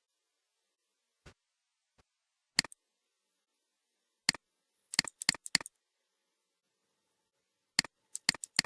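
Computer mouse clicking: scattered single clicks a second or two apart, a quick run of about five clicks about five seconds in, and another run of clicks near the end.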